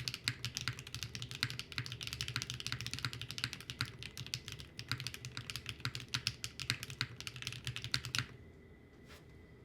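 Mechanical keyboard with Novaris Studio Her Heart linear switches (polycarbonate top housing, LY stem, PA12 bottom housing) typed on quickly and continuously, a dense run of key clacks that stops about eight seconds in, with one faint click after.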